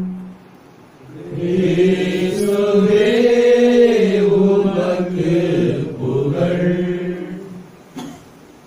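A chanted sung response in Tamil following the Gospel reading at Mass: a slow melody with long held notes that starts about a second in and dies away near the end.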